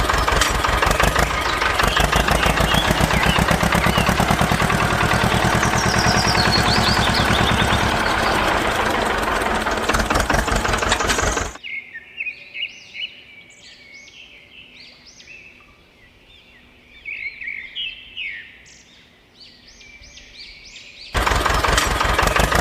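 A small motor running with a fast, even buzz, stopping suddenly about halfway through. Bird chirps follow, and the motor starts again near the end.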